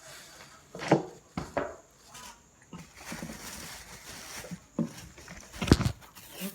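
A handful of sharp knocks and clatters from a dog's food bowl and utensils being handled while food is dished out. The loudest knock comes near the end.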